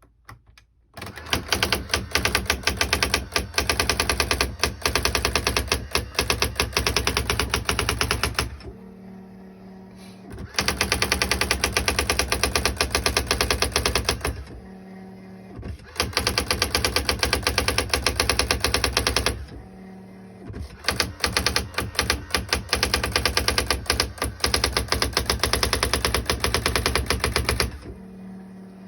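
Brother GX-7500 electronic daisy wheel typewriter printing in long runs of rapid, evenly spaced strikes. The runs are broken by short pauses of about two seconds, in which a steady low hum is heard.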